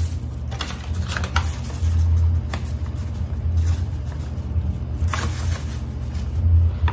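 Plastic bag and paper flour package rustling and crinkling in the hands, with several short crackles, over a steady low hum.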